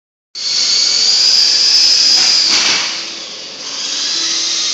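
Small electric RC toy helicopter's motors spinning up with a steady high-pitched whine, starting about a third of a second in, easing off around three seconds and rising again.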